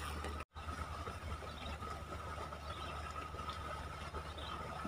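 Steady background noise: a low rumble with a thin steady tone above it and faint scattered chirps, broken by a brief dropout about half a second in.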